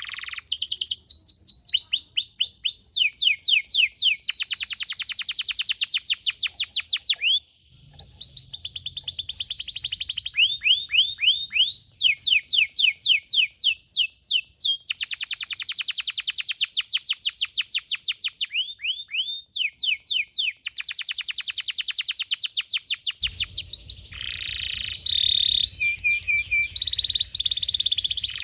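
Domestic canary singing a long song of rolling trills: runs of rapid, repeated downward-sliding notes, more than ten a second, changing speed and pitch from phrase to phrase. There is a brief break about a quarter of the way in.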